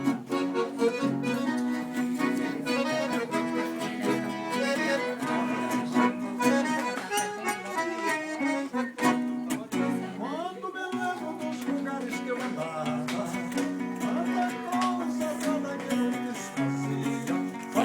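Instrumental music: an accordion holding and moving between sustained notes over a plucked viola caipira, the Brazilian ten-string guitar.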